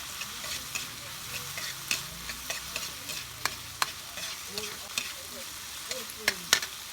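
Food sautéing in a pan, a steady high sizzle, stirred with a utensil that clicks and scrapes against the pan several times, loudest near the end.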